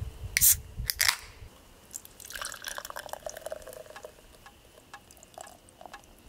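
An IPA can cracking open with two short, sharp hisses near the start, then the beer poured from the can into a glass mug: a gurgling pour with a slowly falling tone, then small ticks and fizzing from the foam.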